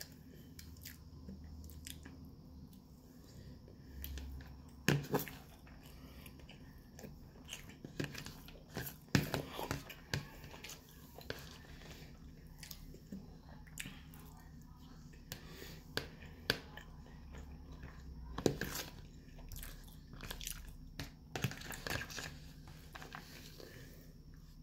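Close-up chewing and biting of breaded chicken cutlet and rice, with wet mouth sounds. Scattered sharp clicks and scrapes come from the metal fork against the plastic food tub.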